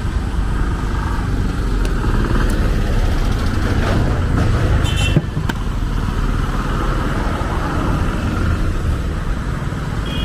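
Busy street traffic with motorcycles and cars passing, a steady rumble, with a few sharp knocks and a brief high beep about five seconds in.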